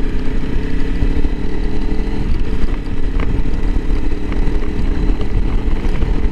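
Honda CRF300L Rally's single-cylinder four-stroke engine running at a steady pace while riding, with rough low road and wind rumble underneath.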